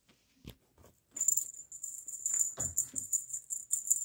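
A small bell on a feather wand cat toy jingling as the toy is shaken. It starts about a second in and comes in quick bursts, about four a second, with a soft thump in the middle.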